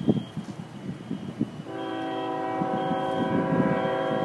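Wind buffeting the microphone, then just under two seconds in a locomotive air horn starts sounding as one long steady chord that holds on.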